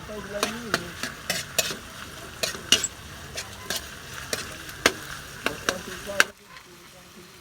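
Sahang shellfish being stirred in a sizzling pan: a utensil clatters and clinks irregularly against the pan and shells over a steady sizzle. The sound stops suddenly near the end.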